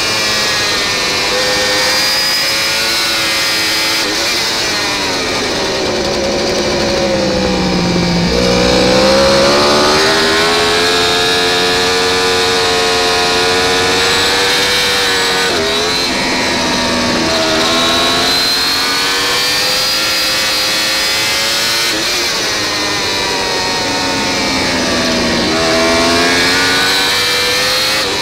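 Yamaha R1 superbike's inline-four engine at racing pace, heard from the bike itself. Its pitch falls over several seconds as the bike slows for a corner, then climbs again under hard acceleration, with short breaks at the upshifts.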